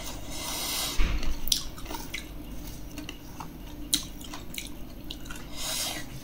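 Close-up wet eating sounds as sour pickled fruit is chewed: scattered smacks and clicks, with a short hissing slurp near the start and another near the end.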